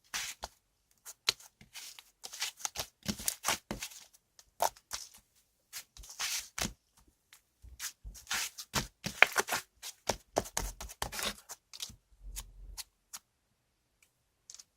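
Cloud slime handled by hand, giving quick, irregular crackles and crunches in clusters; it goes quiet near the end.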